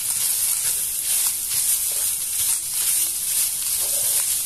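Shredded chicken sautéing in olive oil in a frying pan while being stirred with a silicone spatula: a steady sizzling hiss with faint scrapes of the stirring.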